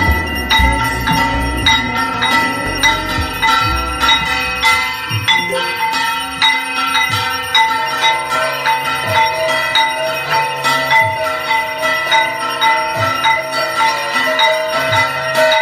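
Puja bells ringing over and over in a steady rhythm, two or three strikes a second, for the arati, with a low pulsing drone underneath in the second half.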